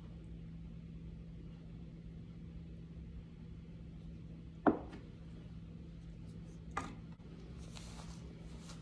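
A small shaker and a glass bowl of food handled on a table over a steady low hum. There is one sharp knock about halfway through, a lighter click a couple of seconds later, and near the end a short rustle of a sweater sleeve as an arm is raised.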